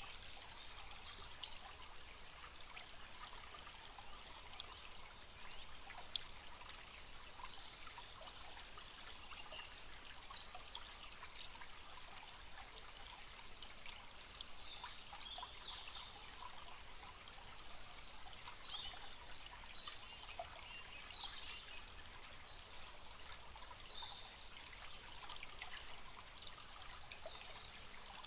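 Small forest stream trickling steadily, with birds chirping here and there in the background.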